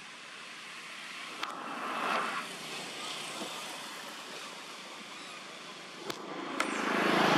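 Outdoor background with vehicles passing out of sight. A brief swell goes by about two seconds in, and a louder one builds near the end. A few faint sharp clicks are heard.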